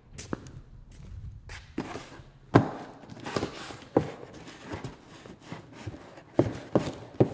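A series of irregular knocks and thumps, about nine in all, the loudest about two and a half seconds in.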